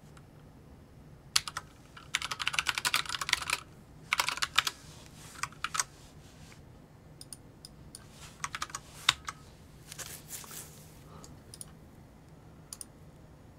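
Typing on a computer keyboard: a fast run of keystrokes about two seconds in, a shorter burst about four seconds in, then scattered single clicks.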